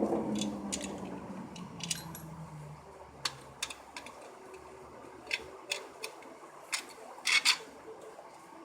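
A dozen or so sharp clicks and clinks of small hard objects, spaced irregularly, with a close pair near the end the loudest, over a low hum that fades out in the first few seconds.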